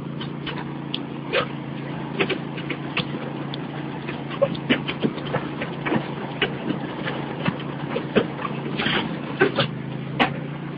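Riding lawn mower engine running with a steady drone, under frequent irregular clattering knocks from the towed wagon bouncing along behind it.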